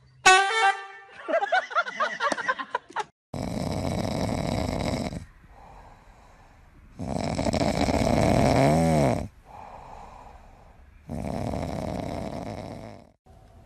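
A brief high, wavering pitched sound, then loud snoring: three long rasping breaths about four seconds apart, with quieter breaths between them.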